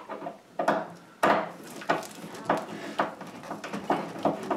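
A regular series of short, sharp knocks and rubs, about one every half second or so and loudest about a second in: an over-the-range microwave being bolted up under a wooden cabinet, its top mounting bolt being turned after the threads have caught.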